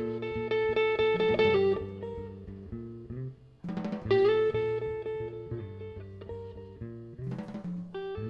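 Guitar instrumental music: a chord struck at the start and again about three and a half seconds in, each left ringing while single notes shift beneath and above it.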